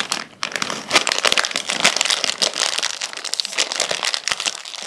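Crinkling and crackling of a small plastic snack packet being handled and pulled open by hand.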